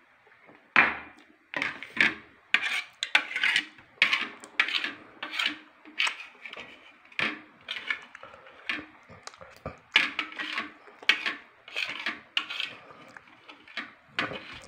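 Metal eating utensil clinking and scraping against a ceramic bowl while scooping up rice, in quick, irregular strokes.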